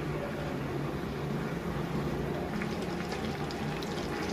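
Cooking oil heating in an aluminium pressure cooker over a stove burner: a steady low rumble, with faint crackles starting about two and a half seconds in as the oil begins to sizzle.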